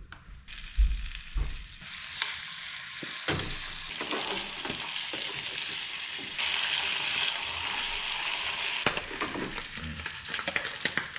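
Bacon sizzling in a hot frying pan. A steady hiss starts about half a second in, grows louder, then cuts off suddenly about nine seconds in, followed by a few light knocks.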